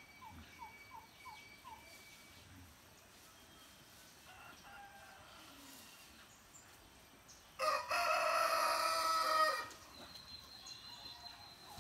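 A rooster crows once, loud and about two seconds long, about eight seconds in. Before it, a run of faint short falling chirps in the first two seconds.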